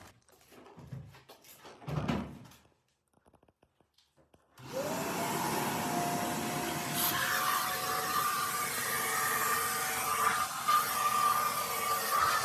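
A vacuum cleaner switches on about four and a half seconds in. Its motor whine rises quickly and then runs steady over a rush of air. Before it starts there are a few soft knocks and rustles, then a brief pause.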